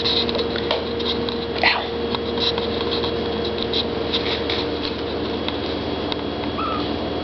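A kitten clambering on a person's shoulder close to the microphone: many small clicks and scratching rustles, with one short rising chirp-like call near the end, over a steady hum.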